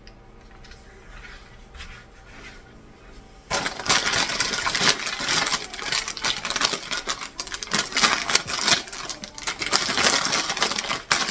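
Blind-box packaging crinkling and rustling: a dense crackle of rapid clicks that starts suddenly about three and a half seconds in, as the next box's wrapper is handled and torn open.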